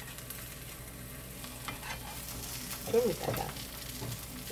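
Vegetable pancake batter sizzling gently in a frying pan, with faint scrapes and taps from a spatula. A brief vocal sound comes about three seconds in.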